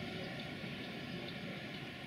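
Tatra KT4DM tram running along the track: a steady low rumble that slowly fades.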